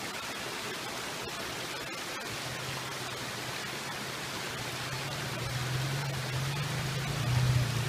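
Steady rush of water running over the rocks of a stream bed, with a low hum from the Toyota FJ Cruiser coming in about two and a half seconds in and growing louder near the end as the truck works up the creek.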